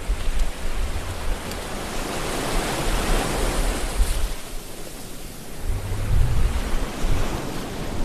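Ocean surf with wind: a rushing swell that builds to a peak about three seconds in, fades, then rises again, with low gusts of wind rumbling on the microphone.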